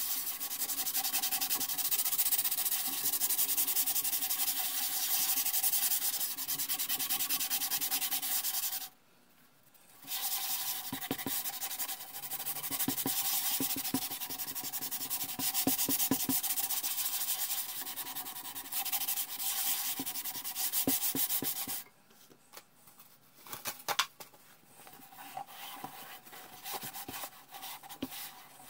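Cloth scrubbing a wet, soapy painted metal cabinet in fast back-and-forth strokes. It comes in two long spells with a short pause about nine seconds in. After about twenty-two seconds it gives way to quieter, patchy wiping and a few sharp taps.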